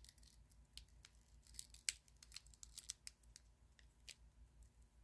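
Faint, scattered small clicks and snicks of baseball trading cards being slid off the front of a stack and flipped to the back in the hands.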